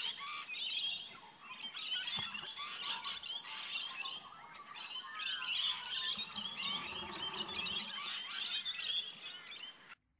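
A flock of rainbow lorikeets chattering and screeching: dense, rapid, high squeaky calls that cut off abruptly near the end.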